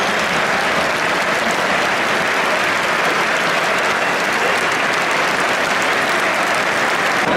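Large football-stadium crowd applauding steadily: a dense, even wash of clapping.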